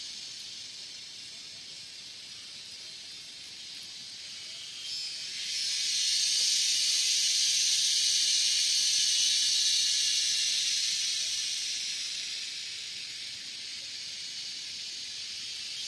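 Cicadas buzzing in chorus in the forest, a very noisy high-pitched drone that swells about five seconds in, stays loudest for several seconds, then eases back.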